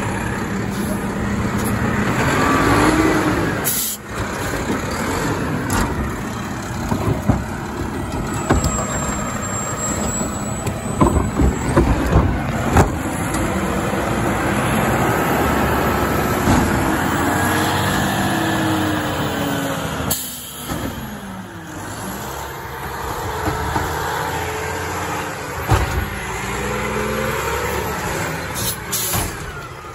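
Mack automated side-loader garbage truck at work: the diesel engine runs while the hydraulic arm whines as it rises and falls, with a cluster of clanks and bangs near the middle as a wheeled cart is gripped, tipped and knocked empty into the hopper. A few short air hisses come from the truck.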